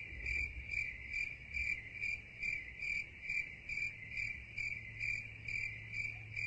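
Crickets chirping in a steady, even rhythm of about two to three chirps a second: the stock 'crickets' sound effect laid over an awkward, speechless moment.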